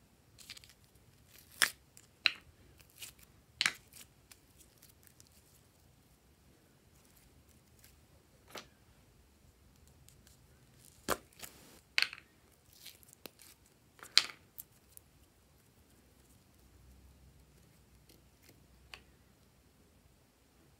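Plastic doughnut-shaped slime containers being handled and opened: scattered sharp plastic clicks and crackles a second or more apart, with a few clusters.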